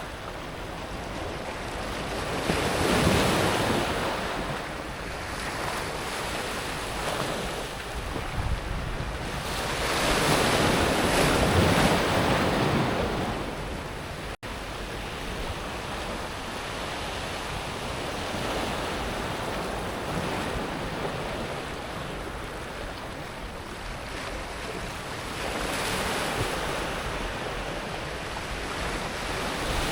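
Sea waves breaking and washing up and back over a pebble beach, with the water running over the stones. Two bigger surges swell up about three seconds in and again around ten to twelve seconds, with a gentler steady wash between. There is a brief cut-out in the sound about halfway.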